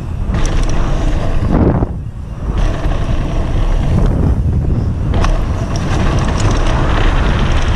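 Wind buffeting a helmet-mounted camera's microphone as a mountain bike runs fast down a dirt trail, with a rushing hiss of tyres on dirt and a few sharp knocks from the bike. The hiss drops away briefly about two seconds in.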